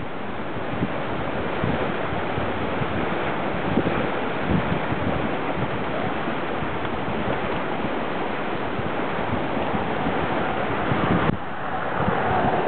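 Steady rushing of fast-flowing floodwater, mixed with wind buffeting the microphone; the sound changes abruptly near the end.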